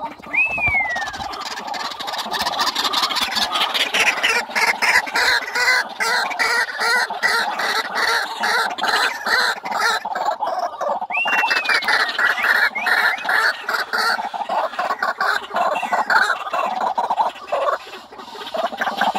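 White-breasted waterhens calling: a loud, fast series of repeated croaking notes, about four or five a second, with two short falling whistles, one near the start and one about eleven seconds in.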